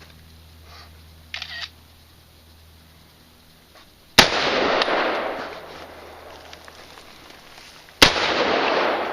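Two single rifle shots from a Colt AR-15, about four seconds apart, each a sharp crack followed by about a second of echo dying away.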